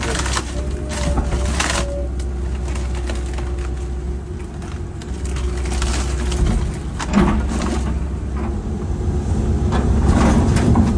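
Cat 312CL excavator's diesel engine running steadily with a steady hydraulic whine, while the machine works demolition debris. Intermittent knocks and crunches come near the start, again about seven seconds in, and near the end.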